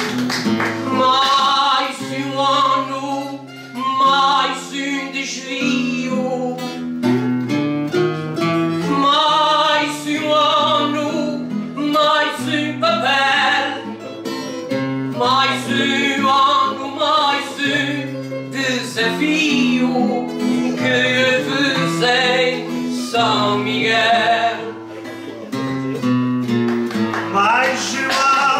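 Plucked-string ensemble music, guitar among it, playing a melody over a moving bass line with a steady pulse of plucked notes.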